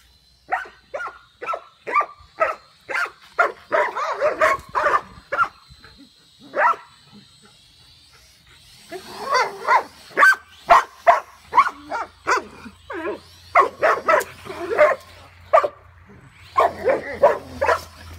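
Dogs, a Belgian Malinois among them, barking excitedly at a small drone overhead, in quick runs of short barks with a pause of a couple of seconds in the middle. Under the first half, the drone's propellers make a faint, thin high whine.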